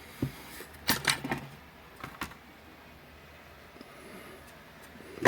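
Small metal parts being handled, a few light clicks and clinks: one just after the start, a cluster about a second in, another around two seconds, and a sharper knock at the end.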